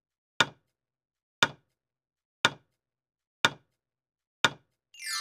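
Clock-tick sound effect of a quiz countdown timer: five sharp ticks, one a second. A bright chime starts right at the end as the countdown runs out.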